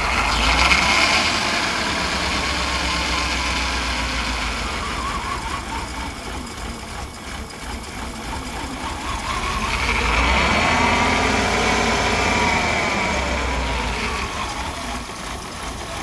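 Mercedes 420SEL's 4.2-litre V8 running rough and misfiring just after starting, revved up and back down once about ten seconds in. The owner ties the misfire to cylinder 8, which is low on compression.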